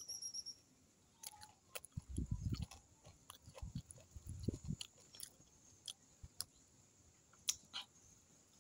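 A person chewing a mouthful of food, in two spells about two and four seconds in, with scattered small clicks between.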